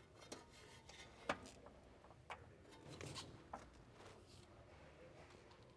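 Faint, irregular metal clicks and taps as a torque wrench, with a deep socket and extension, is fitted and handled on a control arm nut. The sharpest click comes about a second in.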